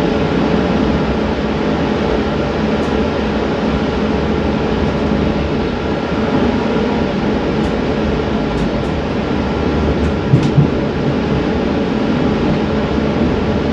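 Inside a passenger train car while the train is running: a steady rumble with a faint hum, and a couple of brief knocks about ten seconds in.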